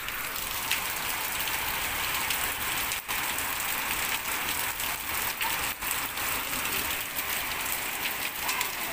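Heavy rain falling and splashing on wet paving, a steady hiss that dips for an instant twice.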